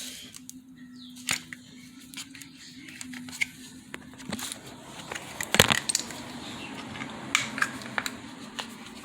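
Seatbelt buckle and its plastic cover being handled: a run of irregular small clicks, taps and rattles of plastic and metal, with a sharper cluster a little past halfway.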